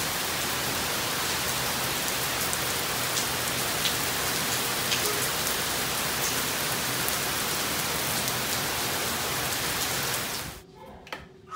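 Steady rain falling, with scattered ticks of single drops. It cuts off abruptly near the end, leaving much quieter indoor sound with a click.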